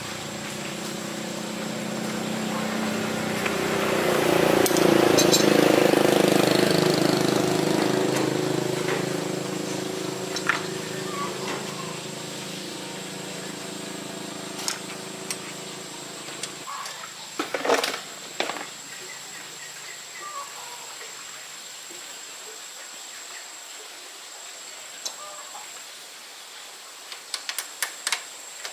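Motorbike engine running, getting louder for a few seconds and then easing off, before it cuts off suddenly about two-thirds of the way through. A few sharp metallic clicks and knocks follow.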